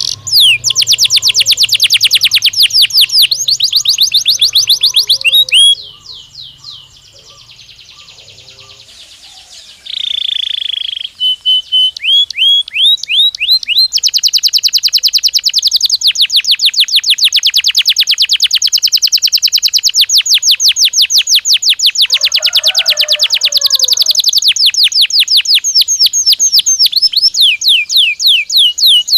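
Domestic canary singing: long rolls of rapidly repeated falling high notes, about seven a second, broken by a brief quieter gap and a short buzzy note near a third of the way in, then one long unbroken trill.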